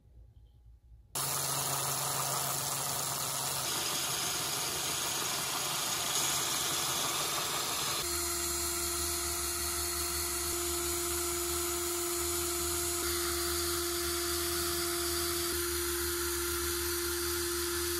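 Cordless drill running steadily, spinning a small steel bolt while sandpaper is pressed against its domed head to polish it, the sanding hiss mixed with the motor's whine. It starts suddenly about a second in, and its tone shifts a few times along the way.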